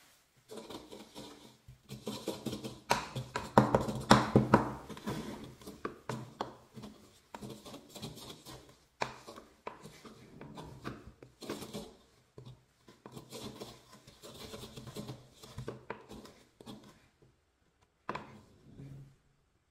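Pestle grinding and pounding kinetic sand with bits of nano tape in a stone mortar: irregular gritty scrapes and knocks, loudest a few seconds in.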